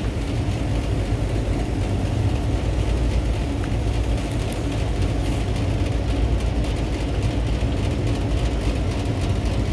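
Steady low mechanical rumble and hum of running machinery, with a faint steady tone above it.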